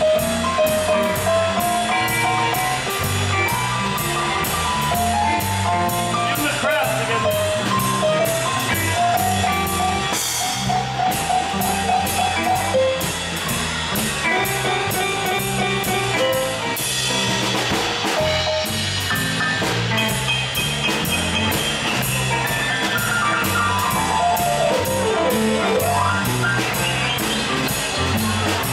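Live blues band playing: drum kit keeping a steady beat under electric bass, electric guitar and keyboard, with a melodic lead line over the top and a fast falling run near the end.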